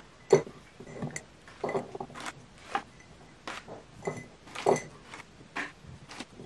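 Chocolate chip cookies dropped one by one into a large glass jar: a string of light knocks and clinks, about two a second, as they land against the glass and on each other.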